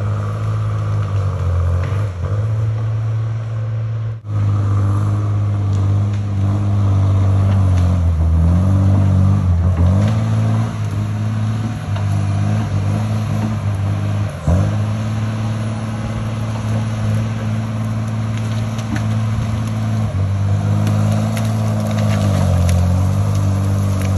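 Diesel engine of a feller buncher running hard under load, its pitch sagging and recovering several times as it works. A few sharp cracks of wood near the end.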